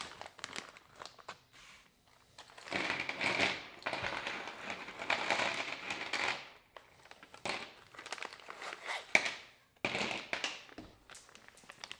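A small plastic parts bag crinkling as it is handled and opened, in one long stretch of crinkling about three seconds in and a few shorter bursts later, with light clicks and taps of small parts between.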